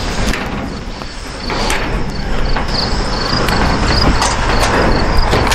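Wire mesh being handled and pressed down over a wooden frame: rattling and scraping with a few sharp clicks, over a steady low rumble. Crickets chirp steadily, several short chirps a second.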